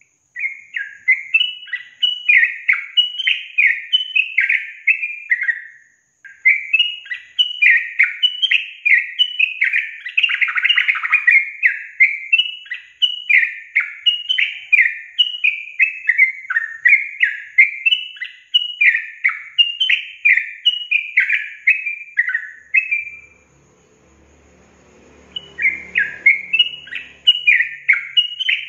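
Yellow-vented bulbul (trucukan) singing a long, fast run of bubbly chattering notes, breaking briefly about six seconds in and pausing for about two seconds near the end before starting again.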